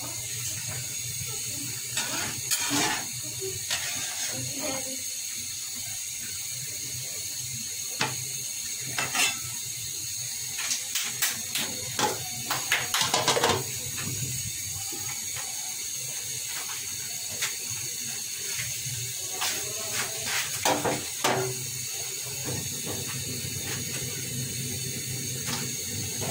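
Curry of tripe and vegetables cooking in an aluminium karai with a steady hiss, while a metal spatula knocks and scrapes against the pan and the aluminium lid clinks as it is set on and handled. The knocks and clinks come scattered, thickest around the middle.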